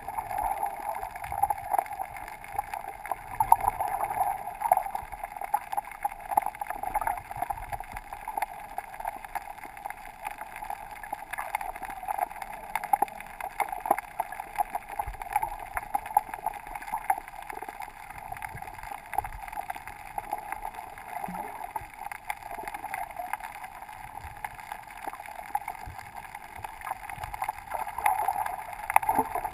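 Underwater sound from a GoPro sealed in its waterproof housing while snorkeling: a steady, muffled water rush with a constant scatter of faint crackling clicks.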